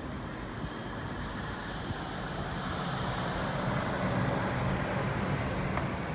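Wind rumbling and buffeting outdoors, swelling louder through the middle of the stretch before easing back.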